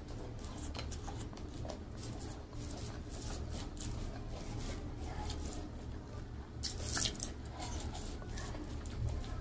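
Close-miked eating sounds: a mouthful of rice and bharta being chewed, and fingers squishing and mixing rice on a foil-covered plate, a string of soft wet clicks and squishes with a sharper, louder rustle about seven seconds in.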